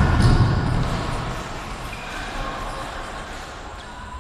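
Game sounds of an indoor football match echoing in a sports hall: dull ball thuds and players' movement, loudest in the first second and then fading.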